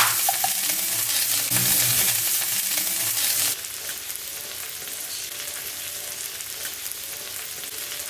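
Chicken sizzling as it fries on a tawa, a flat iron griddle. The sizzle is loud for about three and a half seconds, then drops suddenly to a quieter, steady frying hiss.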